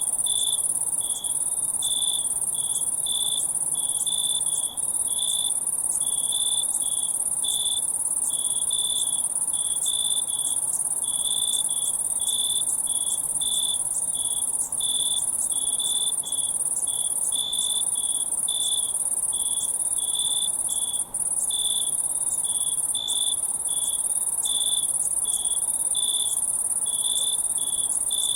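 Crickets chirping: short chirps repeating about twice a second over a steady, higher-pitched trill.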